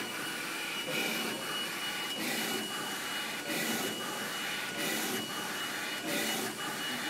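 A24880 flatbed printer's print-head carriage shuttling back and forth across the bed, a hissing pass roughly every second and a quarter over a steady machine hum with a thin, steady high tone.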